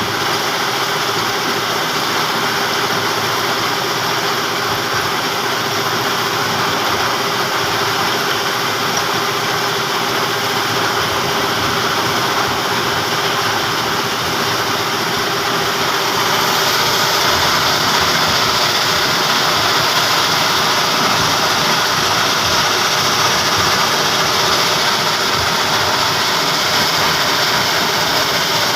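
Stone crusher machine running steadily, a dense mechanical din with a constant hum; it grows a little louder about halfway through.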